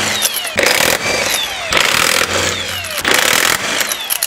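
Impact wrench hammering rear-wheel lug nuts loose in about four bursts. Each burst ends in a falling whine as the tool spins down.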